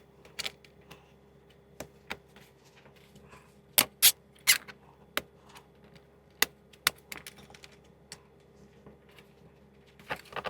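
Metal Blue Point sockets clinking and clicking as they are handled and twisted onto the plastic clips of socket rails: a string of separate sharp clicks at an uneven pace, loudest in a quick cluster about four seconds in.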